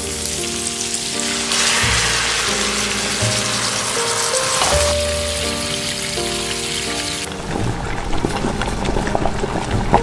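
Food sizzling as it fries in oil in a pan, a dense hiss loudest from about a second and a half in until about seven seconds, then lighter scattered crackling and bubbling. Soft background music with held notes plays underneath.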